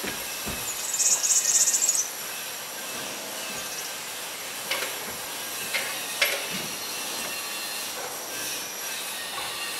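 A few sharp knocks and footfalls as a skater climbs a metal stepladder onto a wall, skateboard in hand, over a steady outdoor hiss. A loud, high buzz rises about a second in and lasts about a second.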